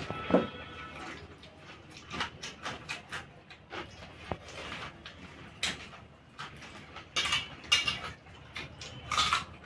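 Two people eating rice with their hands: irregular wet chewing and lip-smacking, with light scrapes and clinks of fingers working rice on steel plates.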